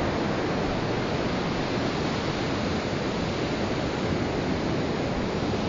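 Steady rush of surf breaking on a beach, mixed with wind, with no single event standing out.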